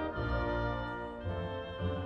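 Background film score of slow, held chords, with the chord changing about a second and a quarter in.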